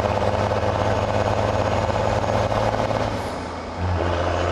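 Lifted Chevy crew-cab truck's diesel engine running loudly as the truck drives by, dipping briefly about three and a half seconds in before picking up again.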